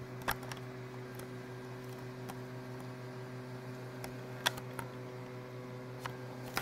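Steady low hum with a few faint clicks, the sound of a camcorder being handled and its controls worked.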